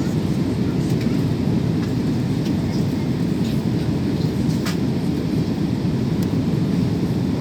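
Steady low rumble of engine and airflow noise inside the cabin of an Airbus A320neo in flight, with a few faint ticks.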